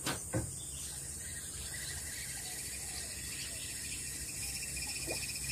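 Fishing reel being wound, a fast, even mechanical ticking whir.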